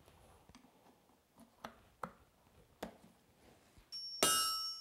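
A few faint, sharp clicks from a farrier's pincer tool working the nail ends on a shod hoof. About four seconds in, a loud hammer blow lands on hot iron on the anvil, and the metal rings on.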